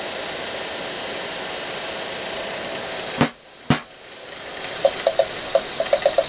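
Daewoo Nexia heater blower motor and fan wheel, fitted with new brushes, running on the bench with a steady whoosh of air. About three seconds in, a click and it cuts out; a second click and it spins back up. Near the end a fast, irregular ticking joins it as the running motor is lifted and tilted.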